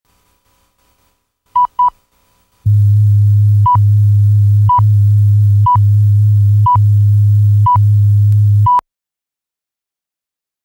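Countdown leader: two short high test beeps, then a loud low hum broken by a short high beep once a second, six beeps in all, before the hum cuts off suddenly.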